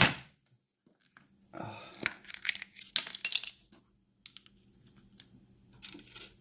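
A gold nugget clinking into a small nugget vial, with scattered small clicks and taps from the vial and lid being handled.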